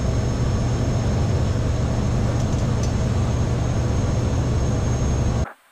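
Cessna 208 Caravan's PT6 turboprop running at ground idle, heard inside the cockpit: a steady low drone with a thin high whine on top. It cuts off suddenly near the end.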